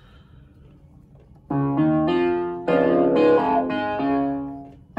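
Piano-like chords from a software keyboard patch, played on an Arturia KeyLab Essential 61 MIDI controller. After a faint first second and a half, a run of about five sustained chords begins, and the last rings down near the end.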